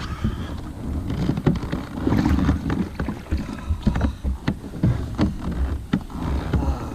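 Knocks and clatter of a Jackson Big Tuna plastic kayak being handled and set off on the water, over wind buffeting the microphone.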